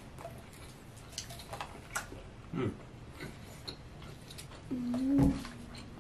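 People eating at a table: scattered small clicks and chewing sounds, with a short vocal sound about two and a half seconds in and a brief hummed 'mmm' about five seconds in.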